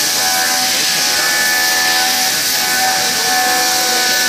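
CHENCAN SG1525 gantry CNC machining centre milling aluminium with an end mill. Steady hiss from the nozzles aimed at the cutter, with high cutting tones that fade in and out.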